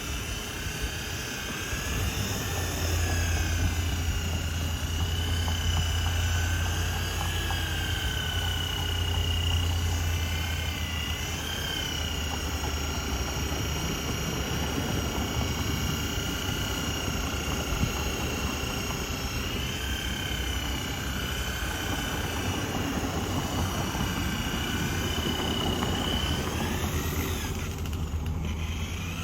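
Electric polisher spinning a buffing wheel on aluminium: a steady motor whine over a low hum, its pitch dipping briefly several times and dropping out for a moment near the end.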